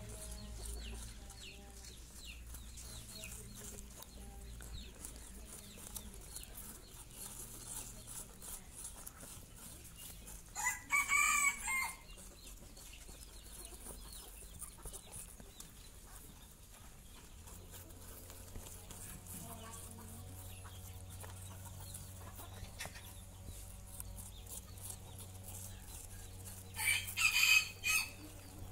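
Baby rabbits gnawing and crunching an apple, a steady patter of small chewing clicks. A rooster crows twice, about 11 seconds in and again near the end, louder than the chewing.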